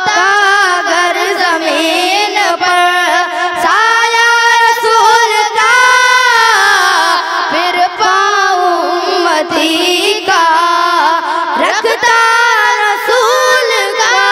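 Boys singing a naat, an Islamic devotional song, into handheld microphones: long held notes that waver, joined by melodic runs.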